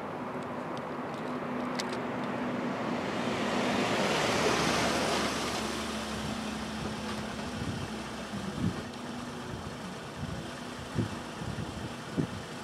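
A pickup truck driving up and stopping: its engine and tyre noise swells to a peak about four to five seconds in, then eases to a steady low hum. Scattered low thumps follow in the second half.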